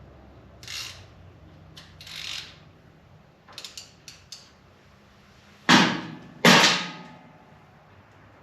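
Hand tools working on a motorcycle's front fork tubes and triple-tree clamps: light metal clicks and scrapes, then two loud rasping strokes less than a second apart, past the middle.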